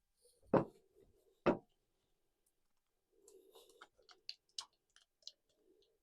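Spoon or spatula knocking against a jar while thick conditioner paste is scooped in: two sharp knocks, then a run of light clicks with soft scraping.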